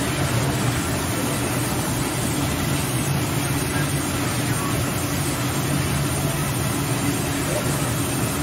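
Sawmill cutting machine running steadily: a constant, unbroken machine drone with a low hum and no pauses.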